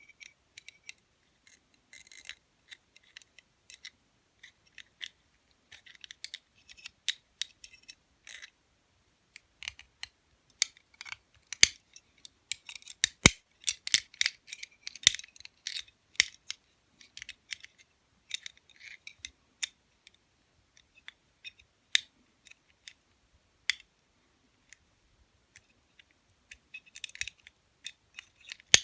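Lock pick working inside an Eagle double-locking lever padlock: irregular small metallic clicks and scratches as the pick searches through the stack of levers, busiest and loudest in the middle stretch.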